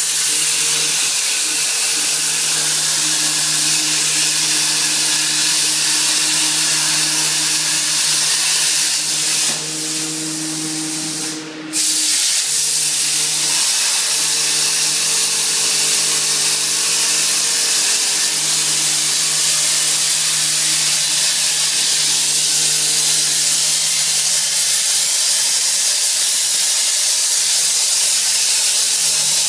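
Hypertherm Powermax 1000 plasma torch cutting 1/2-inch steel plate on a PlasmaCam CNC table: a loud, steady hiss of the arc and air jet with a low hum underneath. The sound drops briefly about ten seconds in, then comes back at full strength.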